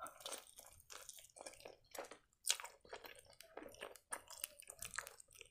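Quiet, close-miked chewing of a crisp fried cheburek (meat-filled pastry): irregular small crunches and wet mouth clicks.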